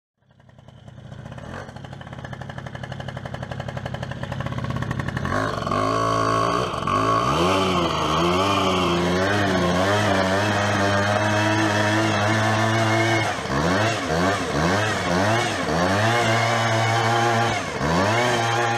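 Two-stroke Peugeot Speedfight 100cc scooter engine fitted with a Malossi 120cc bore kit, heard at the exhaust. It starts as a fast steady pulsing that grows louder, then from about five seconds in it is revved up and down in repeated blips, with short spells held at high revs.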